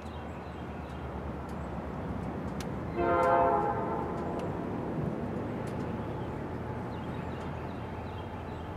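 EMD SD40-2 diesel locomotive approaching, its 16-cylinder two-stroke engine running with a steady low drone, and one short blast of its multi-chime air horn about three seconds in.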